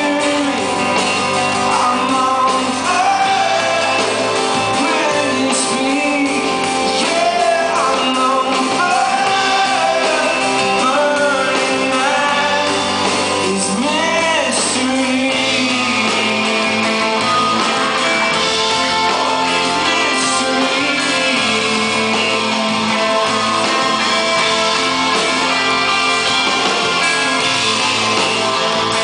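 Live rock band performing a song: a singer's voice over acoustic and electric guitars, keyboards and drums, with the echo of a large theatre hall.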